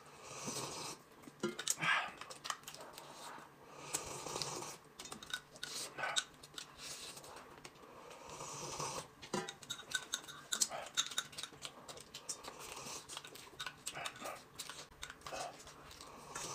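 Quiet close-miked eating sounds: a drink sipped and slurped from a glass cup and roast chicken torn and chewed, with small irregular clicks of a spoon against the glass.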